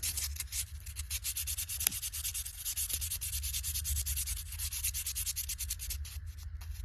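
Sandpaper rubbed by hand in quick short back-and-forth strokes down inside a small pocket knife's frame, scrubbing out rust, with a brief pause near the end.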